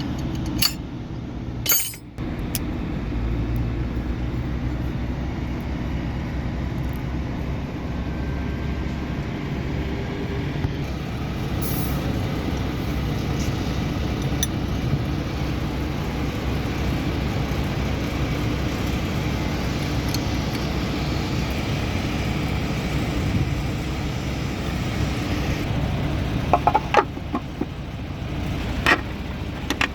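Mercedes-Benz Actros MP2 truck's diesel engine running steadily, with a few sharp metallic clicks near the start and again near the end.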